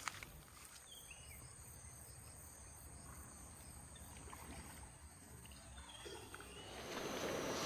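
Faint outdoor ambience with a steady high-pitched insect trill and a few short chirps about a second in. Near the end a louder rushing noise swells up.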